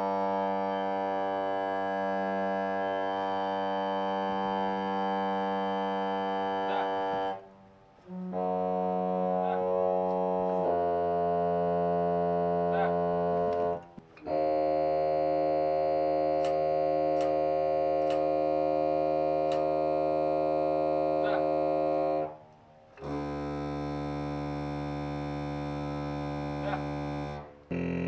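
Pipe organ sounding a series of long held chords, each several seconds long, separated by brief breaks.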